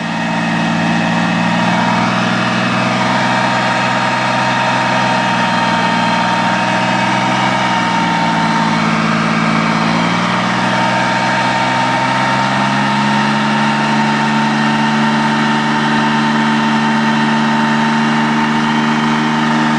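LAV-25 armored vehicle's diesel engine running steadily; about eight seconds in the revs drop briefly and then climb back, settling a little higher.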